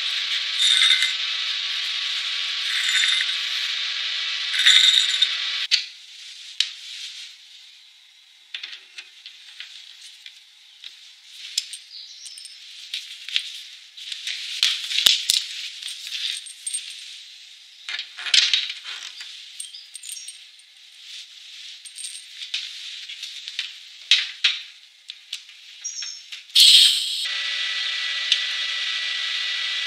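Welding torch cable and its metal fittings being handled: scattered clicks, clinks and rubbing. A steady hiss with a faint tone runs for about the first six seconds and comes back near the end.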